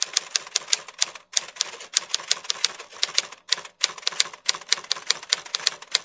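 Typewriter sound effect: a fast run of key clacks, about five or six a second, broken by short pauses about a second in and again around three and a half and four and a half seconds in.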